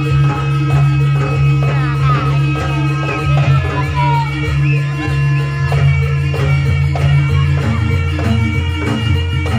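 Loud music with a steady held bass, a drum beat and a high melody that glides up and down; the bass line changes near the end.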